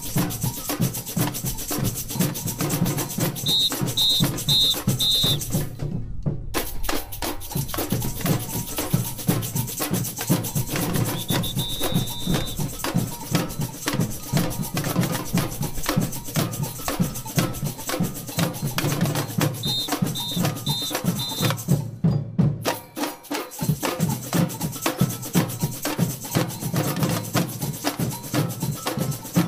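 Samba bateria playing a driving street groove of bass drums, snare drums and bells. Short, high whistle calls cut in twice with four quick blasts.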